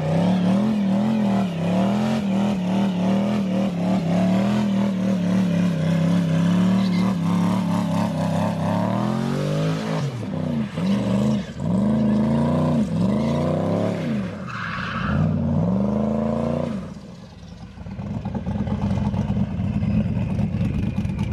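Twin-turbo S10 pickup's engine held at high revs, wavering, then revved up and down in quick repeated rises and falls before dropping off sharply near the end to a steadier, lower running sound.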